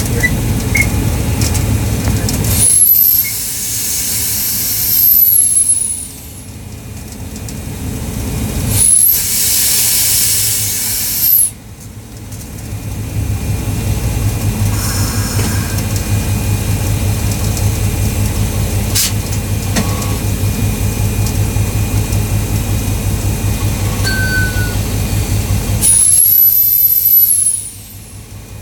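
Train air brakes venting compressed air in three loud hissing blasts of a few seconds each, about 3 s, 9 s and 26 s in. Beneath them runs the train's steady low rumble.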